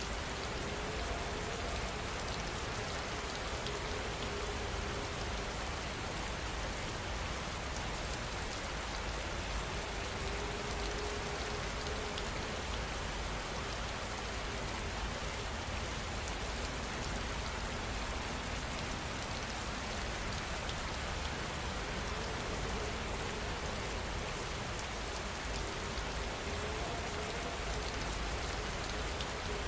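Steady rain falling, an even hiss of many drops without let-up. A faint held tone comes and goes every few seconds beneath it.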